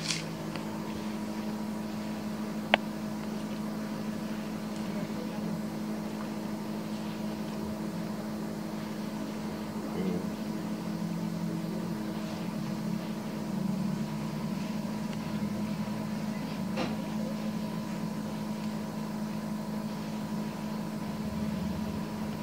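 A steady machine hum at a constant low pitch, with a single sharp click about three seconds in.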